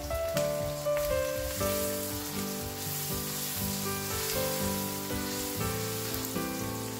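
Chopped onions sizzling in hot oil in a wok while a wooden spatula stirs and scrapes them around the pan, with background music.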